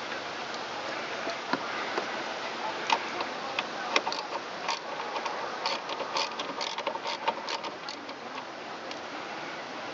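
Irregular sharp clicks and light metallic clinks of hand tools working on metal parts, most of them clustered in the middle of the stretch, over a steady hiss.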